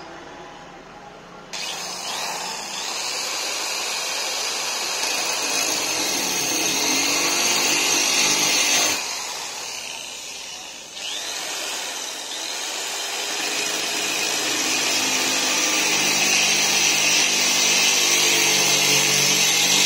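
Corded electric drill with a 2-inch core bit grinding a hole through a sheet of glass: a steady motor whine under a gritty, hissing grind. It starts about a second and a half in, eases off for a couple of seconds around the middle, then bites in again and runs on, growing a little louder.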